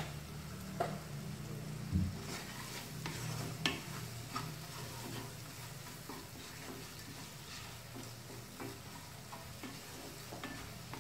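A spatula stirring and scraping a thick spice masala frying in a nonstick kadhai, with a light sizzle. A few sharper knocks of the spatula against the pan come in the first few seconds.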